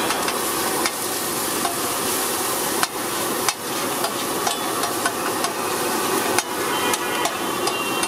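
Egg frying on a large flat griddle, with a steady sizzle and a metal spatula scraping across the plate and knocking against it a few times.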